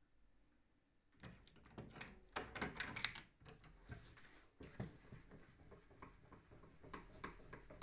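Shotgun-shell closing press being worked by its hand lever: a run of metal clicks and clanks, loudest about three seconds in, then sparser clicks as the shell is closed.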